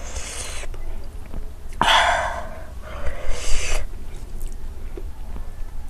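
A person breathing hard in three noisy breaths: one at the start, a louder one about two seconds in, and another about three seconds in. It is the hard breathing of a mouth burning from a super-hot chili chip.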